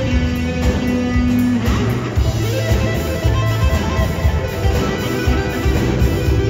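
Live band music: an electric guitar solo on a Stratocaster-style guitar over bass and drums. It opens on a held note for about a second and a half, then moves into quick melodic runs.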